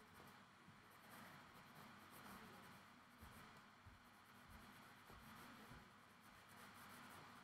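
Faint scratching of an orange Prismacolor colored pencil sketching on paper, in soft swelling strokes.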